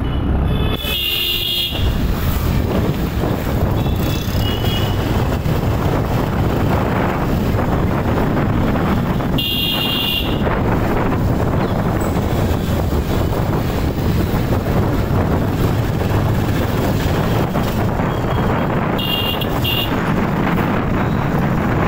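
Steady road and wind rumble while moving through busy street traffic, with vehicle horns tooting briefly about a second in, around ten seconds in, and a couple of seconds before the end.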